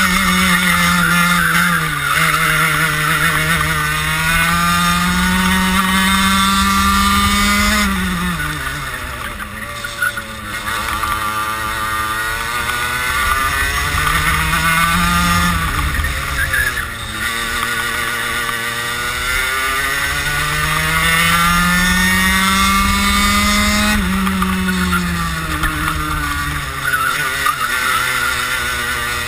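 Kart engine heard from onboard at speed, its pitch climbing steadily along the straights and dropping off sharply twice, about eight seconds in and again near the end, as the driver lifts and brakes for corners.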